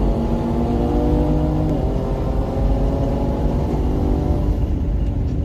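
2020 Ford Explorer ST's twin-turbo V6, heard from inside the cabin at full throttle on a quarter-mile pass. Its pitch climbs, dips briefly about two seconds in as it shifts up, and climbs again. Near the end the driver lifts and the engine note fades into road and wind noise.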